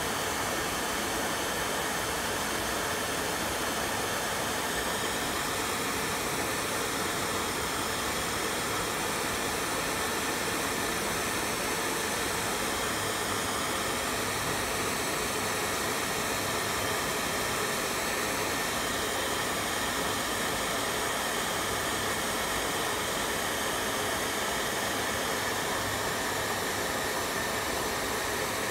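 Small electric motor of a homemade egg-shell toy helicopter spinning its rotor steadily: an even whirring hiss with a faint whine that wavers slightly in pitch.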